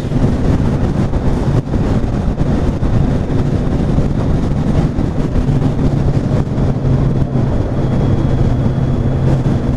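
Kawasaki Z900's inline-four engine running steadily while the bike rides along, under heavy wind and road rumble. The engine note holds one pitch and grows stronger about halfway through.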